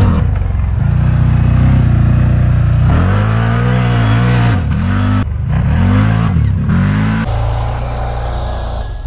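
A vehicle engine running, revved several times in quick succession through the middle, its pitch rising and falling with each rev, then settling back to a steadier run near the end.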